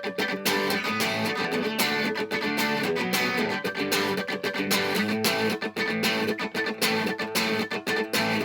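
Instrumental break in a song: guitar strumming in a steady rhythm.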